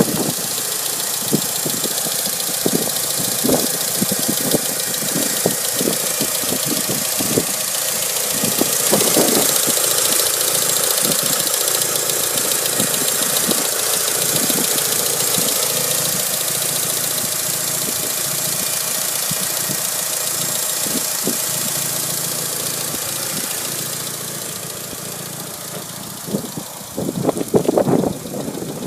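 Mitsubishi Lancer Evolution V's turbocharged 4G63 four-cylinder engine running with a ticking noise from the engine, many quick ticks over the steady hum. The owner reports that this tick gets very loud when the engine is cold.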